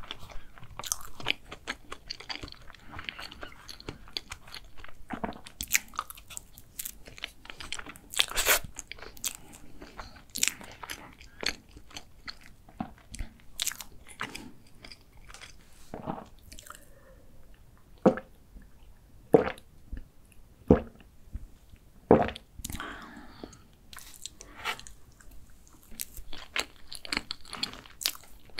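Close-miked eating sounds: chewing, wet mouth clicks and lip smacks while soft chocolate dessert is eaten straight from a clear plastic cup. A string of louder single clicks comes a little past the middle.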